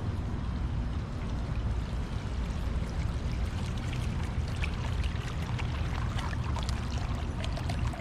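Water bubbling up out of a ceramic urn fountain and spilling over its rim into a bed of river stones: a steady splashing trickle that grows clearer and more crackly from about three seconds in, as the fountain comes close.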